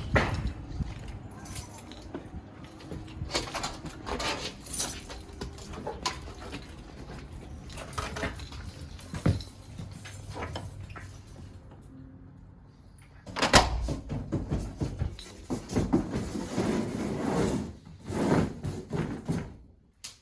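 A run of irregular knocks, clicks and rattles from things being handled, with one sharp loud bang about 13 seconds in.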